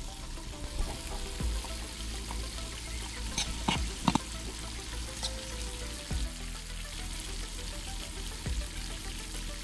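Chicken pieces deep-frying in hot oil in a miniature metal wok, a steady sizzle. About three and a half to four seconds in come a few sharp clicks of metal tongs against the pan as the pieces are turned.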